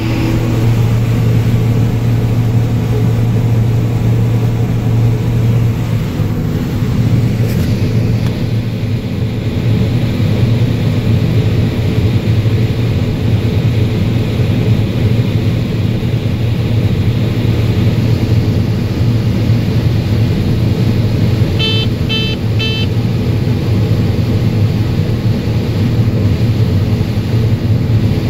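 Combine harvester running steadily under load while harvesting corn, a constant low engine hum. About three-quarters of the way through come three short, high electronic beeps in quick succession.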